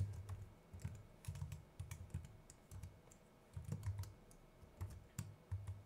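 Typing on a computer keyboard: a run of irregular, quick keystrokes, fairly faint.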